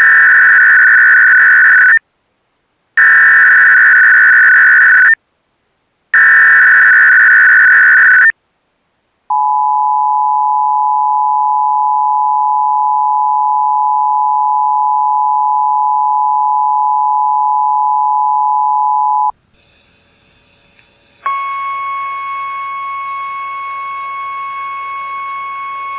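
Emergency Alert System SAME header, slowed to 300 baud: three loud data bursts of about two seconds each, a second apart, followed by the two-tone EAS attention signal held steady for about ten seconds. After a short pause with faint hiss, a quieter steady tone over hiss starts about three-quarters of the way in.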